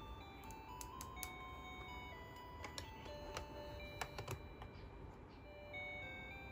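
Background music: a simple, slow melody of single held notes. Light plastic clicks from a toy cash register's handheld scanner being handled and set into place, several of them close together about four seconds in.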